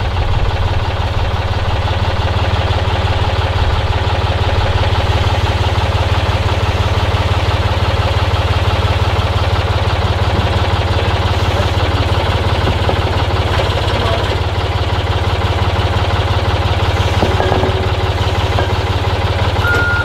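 Forklift engine idling steadily, a deep even hum with a faint knock.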